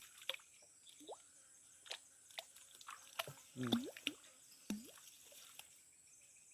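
Water dripping and plopping in small drops, with scattered light clicks. The loudest plops fall about a second in and in the middle.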